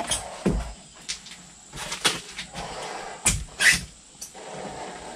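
Plastic mixing cups and a wooden stir stick being handled while mixing two-part pour-in flotation foam: a series of irregular knocks and short scrapes, the loudest a little past the middle.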